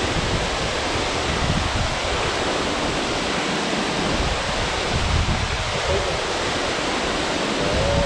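Steady rushing roar of Nagao Falls, a waterfall plunging into a rock pool, with uneven deeper rumbling underneath.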